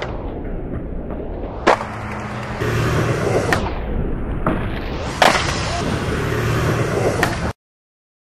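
Skateboard wheels rolling on concrete, with several sharp board pops and landing slaps. The sound cuts off suddenly near the end.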